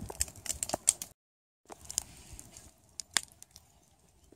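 Wood fire crackling, with scattered sharp pops. The sound cuts out completely for about half a second just after a second in.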